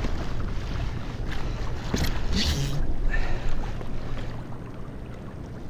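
Wind buffeting a body-worn action camera's microphone on a kayak at sea, with water washing against the hull. About two seconds in there are a few short bursts of rustling as a tautog is grabbed in the landing net.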